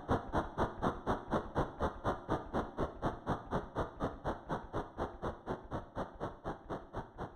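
Model train running, with a steady rhythmic beat of about four pulses a second that eases slightly toward the end.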